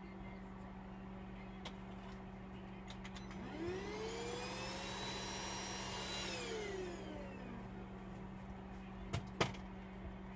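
A small electric motor spins up with a rising whine a few seconds in, runs steadily for about a second, then winds down. This is followed by two sharp clicks near the end, over a steady low hum.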